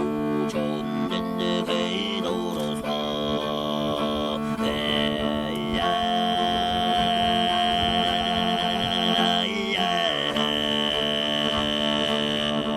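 Mongolian throat singing: a low, steady sung drone with a single high overtone held clearly above it. The overtone shifts pitch a few times and sinks lower in the middle before climbing back.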